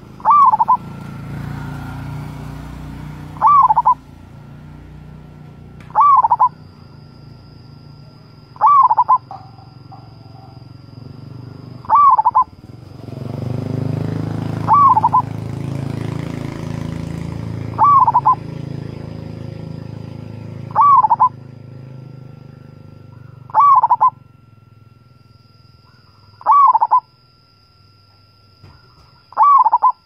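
Zebra dove (perkutut) cooing: a short, loud call repeated about every three seconds, eleven times, over a low background rumble that swells in the middle.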